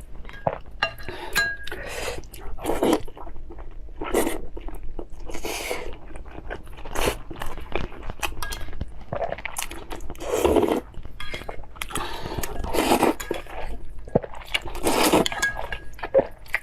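Close-miked eating: chewing and crunching in irregular bursts, with occasional clinks of utensils against dishes.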